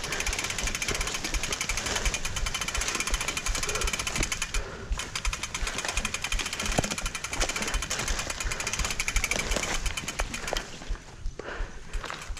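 Mountain bike rattling over a rough single-track trail: a fast, continuous run of knocks and chatter from the bike, easing off about ten seconds in.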